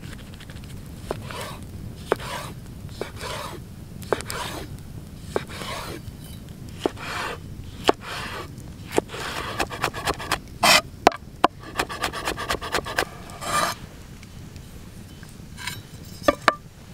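Large kitchen knife cutting a red chili pepper on a wooden cutting board: single sharp knocks of the blade on the board with scraping and rubbing between them, then a quicker run of chops in the middle, and a few last knocks near the end.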